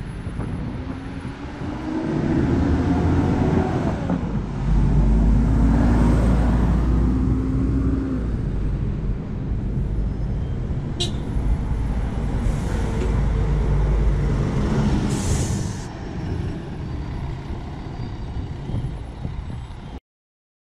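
City bus engines at a bus stop: engine pitch rising as a bus pulls away, then a deep, steady engine rumble. Two short air-brake hisses come about twelve and fifteen seconds in as the next bus pulls up, and the sound cuts off suddenly near the end.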